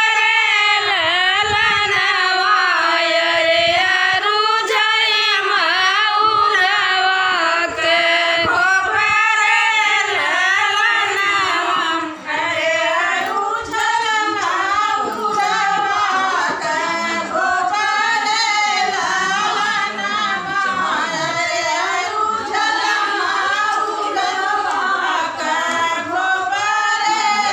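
Group of women singing a North Indian folk wedding song (vivah geet) together, with long wavering sung lines and no break.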